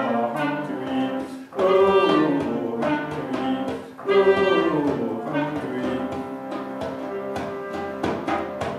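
Live acoustic ensemble music: a clarinet plays a melodic line in phrases that break off twice, over a held harmonium drone and light frame-drum strikes.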